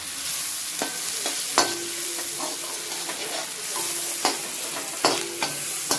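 Sliced onions, capsicum and green chillies sizzling in oil in an aluminium kadhai while a metal slotted spoon stirs them, knocking and scraping against the pan several times with a short ring.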